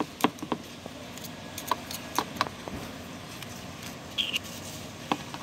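Metal pliers clicking and tapping against the metal cap of a small glue bottle, a few sharp irregular clicks, with a short high squeak about four seconds in.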